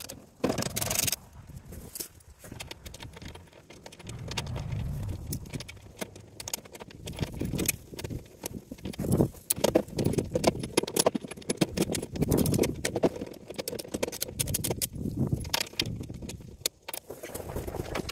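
Socket ratchet clicking in quick runs as a skid-plate bolt is turned in, with metal tool clinks and handling noise.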